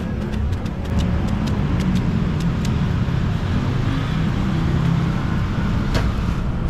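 Road traffic running steadily. A quick run of light, sharp taps comes in the first few seconds, and one louder tap comes near the end.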